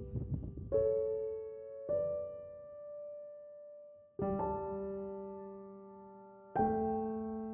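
Soft background piano music: slow chords struck every second or two, each left to ring and fade.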